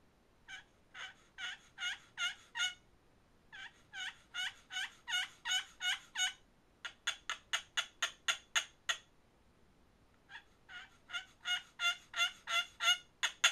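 Homemade friction turkey call made of two paint paddles and a flattened piece of copper tubing, worked by hand to imitate a hen turkey: runs of yelps, about three a second, with a quicker run of sharp cutts about midway and again at the very end.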